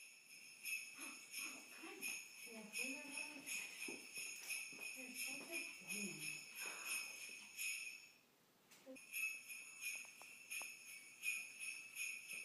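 A small bell jingling over and over, shaken about twice a second, as the conditioned signal that calls the dog onto the stairs. It stops for about a second eight seconds in, then starts again.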